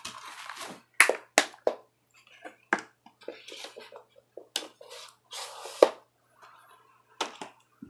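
A plastic DVD case in a cardboard slipcover being handled and set down on a wooden table: a series of sharp clicks and knocks with brief rustling and scraping between them.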